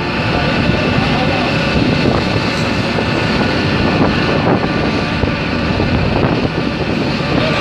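Ship's engine running with a steady drone, mixed with wind on the microphone and rushing sea water.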